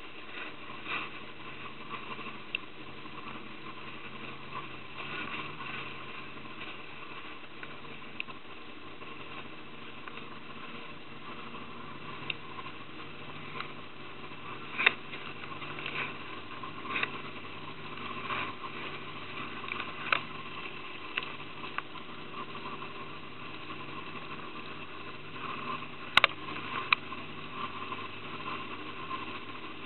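A small boat's motor running steadily at low speed, with a few sharp knocks or splashes now and then, the loudest about halfway through and again near the end.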